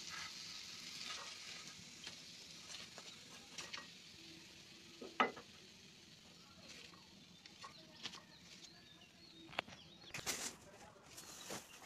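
Faint sizzling of food frying in hot oil, strongest at the start, with scattered light clicks; a sharper knock about five seconds in and a cluster of clattering knocks near the end.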